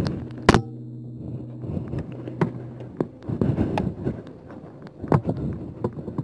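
Footsteps on a muddy, leaf-covered woodland path, an irregular run of short crunching steps that grows busier after about three seconds. A single sharp click comes about half a second in, and a steady low hum sounds under the first three seconds, then stops.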